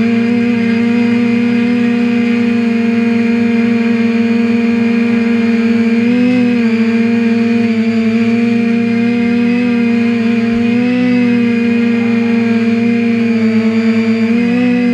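TBS Discovery Pro quadcopter's brushless motors and propellers whining at a steady pitch, close to the onboard camera. The pitch lifts briefly as the throttle changes, about six seconds in and again around eleven seconds.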